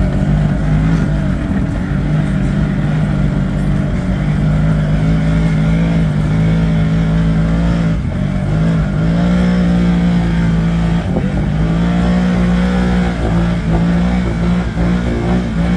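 ATV engine running under throttle, loud and steady, its pitch dipping and picking back up a few times.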